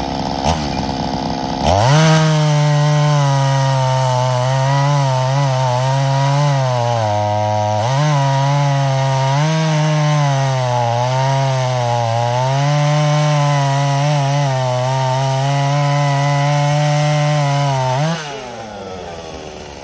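Ported and polished vintage Poulan two-stroke chainsaw with a custom exhaust, revving up sharply about two seconds in and cutting through a log at full throttle, its engine pitch wavering and dipping under load as the chain bites into the wood. Near the end it is let off and falls back to idle.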